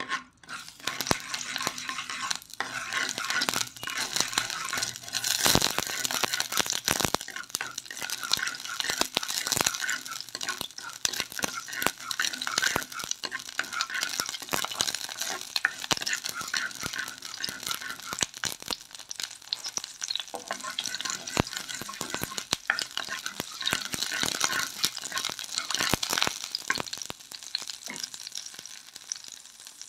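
Fenugreek seeds sizzling in a little hot oil in a clay pot, with many small crackles, while a wooden spoon stirs them and scrapes the pot.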